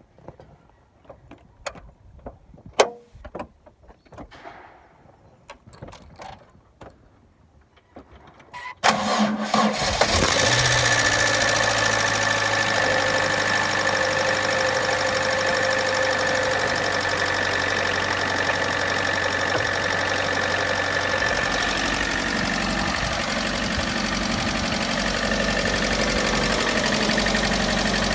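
A few faint clicks and knocks, then a car engine starting about nine seconds in and settling into a steady idle with the tapping of knocking hydraulic lifters. The low engine note changes about twenty seconds in.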